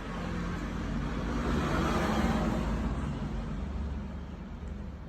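A road vehicle passing by: a low rumble with road noise that swells to a peak about two seconds in and then fades away.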